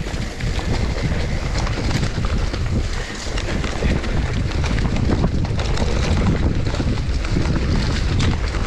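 Mountain bike descending a dirt singletrack: a steady low rumble of wind buffeting the camera microphone and tyres running over dirt, with scattered clicks and rattles from the bike.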